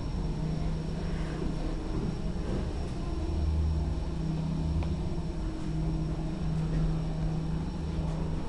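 Kone EcoDisc goods lift travelling down, heard from inside the car as a steady low rumble with a constant hum.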